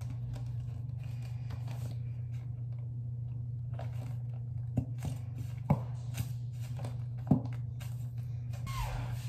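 Conditioner being squeezed from a plastic bottle into a small plastic travel bottle: a few sharp plastic clicks and a short squelch near the end, over a steady low hum.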